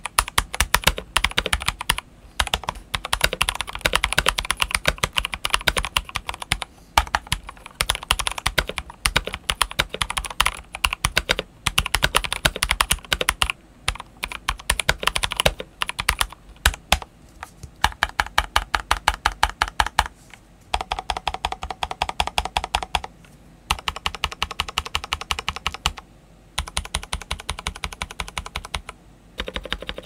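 Mechanical keyboard typing on NK Cream linear switches under Drop DCX doubleshot ABS black-on-white keycaps. Fast runs of keystrokes break off in short pauses, and in the second half the strokes come in quick, evenly spaced bursts.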